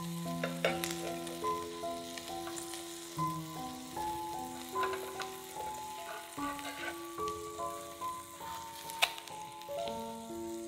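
Food sizzling in a frying pan, with a few sharp clicks, the loudest near the end, under instrumental background music whose melody moves from note to note.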